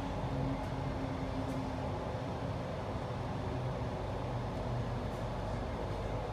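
Electric passenger train running between stations, heard from inside the carriage: a steady rumble with a low hum that fades out about two seconds in.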